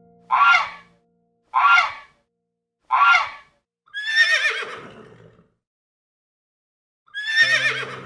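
Three short goose honks about a second and a half apart, then a horse whinnying with a falling, wavering pitch about four seconds in, and a second whinny starting near the end.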